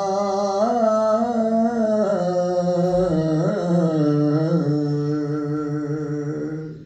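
A man's solo voice singing one long, drawn-out phrase of an Urdu mourning elegy (noha), its pitch wavering in slow ornaments, fading out near the end.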